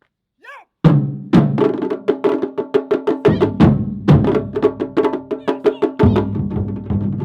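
Japanese taiko drum ensemble starting a piece: a hard opening stroke about a second in, then fast, dense drumming, with a deeper drum coming in about three seconds in and more strongly near six seconds.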